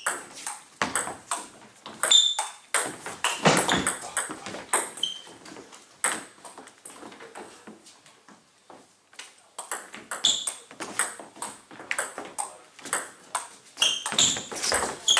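Table tennis ball clicking back and forth between bats and table in fast rallies. The clicks go quieter for a few seconds about six seconds in, then pick up again with the next point.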